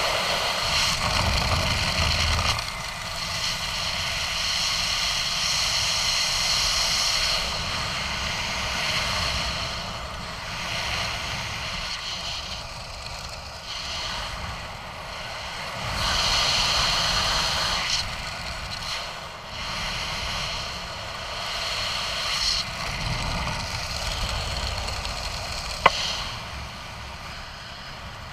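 Wind rushing over a helmet camera's microphone under an open parachute, swelling and fading every few seconds. There is one sharp click near the end.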